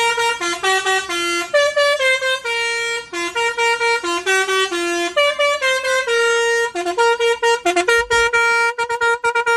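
Basuri musical (telolet) horn playing its fifth tune: a melody of held and short horn notes that steps up and down in pitch, turning near the end into quick repeated toots on one note.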